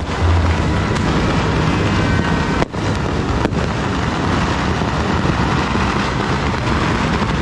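Dense, continuous barrage of New Year firecrackers and fireworks, many small crackles and blasts overlapping into one loud crackling rumble.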